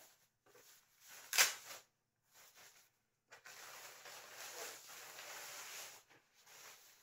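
Thin plastic bag crinkling and rustling as it is pulled down off a large speaker, with one sharp snap about a second and a half in and a steadier stretch of rustling from about halfway through.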